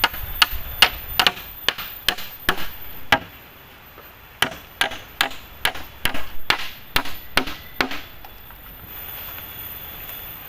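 A hand tool striking wood over and over, about two to three sharp blows a second, in two runs with a short pause about three seconds in; the strikes stop about eight seconds in.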